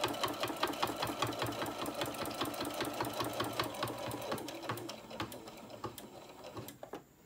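Computerized sewing machine stitching steadily through thick layers of cotton fabric and batting, a fast even run of needle strokes. The stitching grows fainter and stops just before the end.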